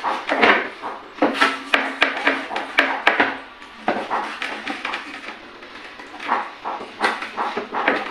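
Large kitchen knife cutting slits into raw chicken on a plate, the blade knocking and clinking against the plate in a quick run of strikes between about one and three seconds in, with softer slicing and scraping around them.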